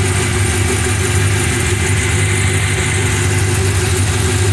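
Brand-new GM LS3 6.2-litre V8 crate engine with long-tube headers and high-flow cats, idling steadily in its first minutes after its first start. A nice, smooth, healthy idle.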